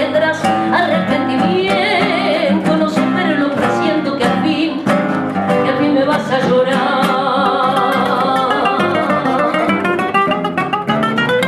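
Three acoustic guitars playing a tango milonga, accompanying a woman singing the closing lines, with a run of rapid plucked notes near the end.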